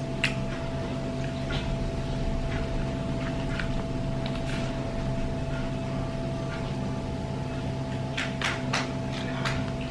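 Scattered light clicks and clinks of tableware over a steady hum, with a quick cluster of clicks about eight seconds in.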